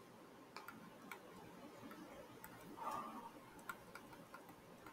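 Near silence with scattered faint ticks of a stylus tapping on a tablet screen as handwriting is written.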